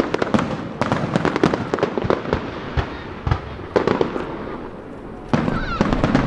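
Aerial fireworks display: a quick succession of booms and crackling bursts, with a louder, denser run of bangs starting about five seconds in.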